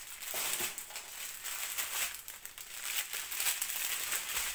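Plastic drill bags crinkling with irregular crackles as strips of sealed diamond painting drill packets are handled.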